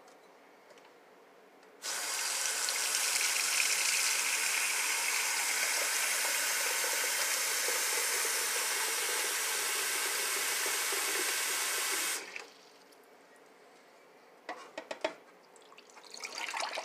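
Kitchen sink tap running into a ceramic dog bowl, filling it with water. The water starts about two seconds in, runs steadily for about ten seconds and is cut off suddenly, followed by a few light knocks near the end.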